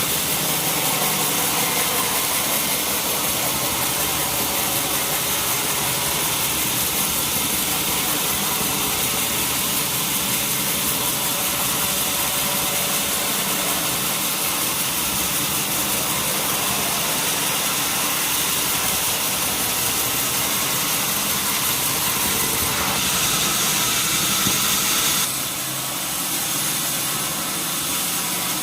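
Sawmill wheel saw and its drive running steadily, a dense mechanical noise that shifts in tone and dips slightly in level near the end.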